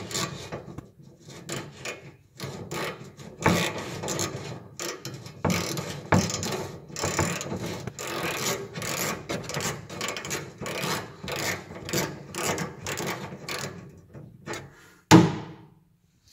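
Ratchet wrench on a long extension and universal joint loosening a rusty bumper-mounting nut: repeated strokes of pawl clicking and rasping as the handle is swung back and forth. A single loud knock comes near the end.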